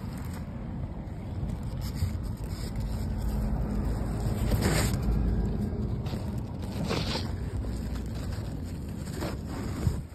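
Wind rumbling on a phone's microphone, heaviest midway through, with a few short brushing scrapes of zucchini leaves against the phone.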